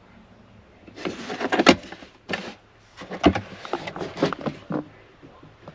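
Handling noises: a run of knocks, clicks and scraping rustles from about one second in to near the end, over a faint steady low hum.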